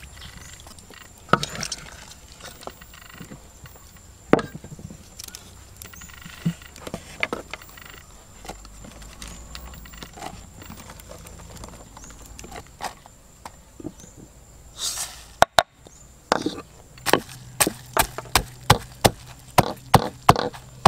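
Scattered light knocks and rustling, then, from about three-quarters of the way through, a wooden pestle pounding red chillies and garlic in a wooden mortar, in even strokes about three a second.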